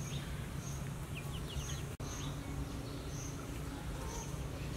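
Outdoor ambience: a short high chirp repeats about every half second over a steady low hum, with a few quick chirps about a second in.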